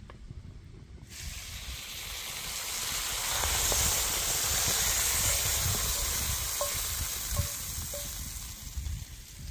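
Salmon frying in a hot pan, sizzling. The sizzle starts suddenly about a second in, as the fish goes into the fat, and carries a few small pops.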